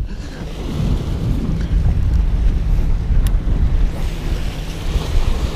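Wind buffeting the camera microphone, a heavy, steady low rumble, with a single sharp click about three seconds in.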